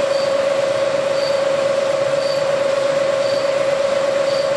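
Bridgeport milling machine running, its end mill cutting out a broken bolt in a cylinder head: a steady, loud, even whine, with a faint high chirp about once a second.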